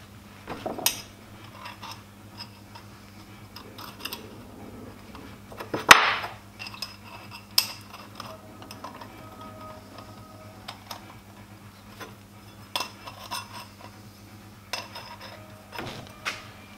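Short stainless steel pipe sections clinking and tapping against one another and the bench as they are stacked and lined up into a pie-cut bend: scattered light metallic knocks, the loudest about six seconds in.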